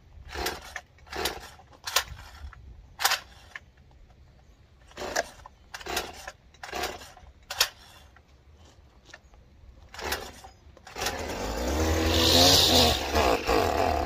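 Gas string trimmer being pull-started: about nine sharp yanks of the recoil starter cord, then about eleven seconds in the engine catches and runs briefly, its revs rising and falling unevenly. A hard start after sitting unused for over a month.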